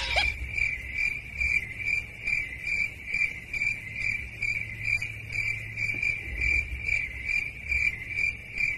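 Cricket chirping in an even rhythm, about two to three chirps a second on a single high note, over a faint low hum.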